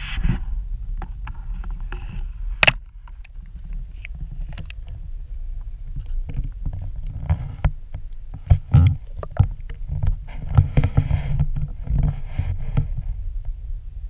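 Muffled underwater sound picked up by a submerged camera among reed stems: a steady low rumble with scattered sharp clicks and knocks, busier in the second half.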